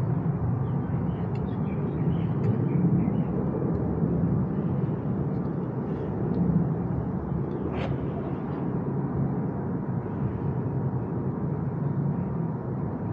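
Steady low rumble of outdoor background noise, with a few faint clicks and one brief sharper sound a little before the end.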